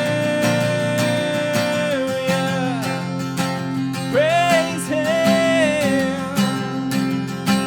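Worship band music in an instrumental passage: acoustic guitar strumming chords under a held melody line that slides up and down in pitch.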